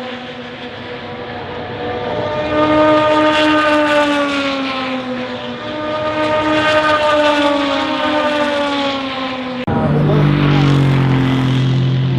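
Endurance race cars passing at speed, engine notes swelling and falling in pitch as each car goes by, two passes in a row. Near the end the sound switches abruptly to a lower-pitched engine.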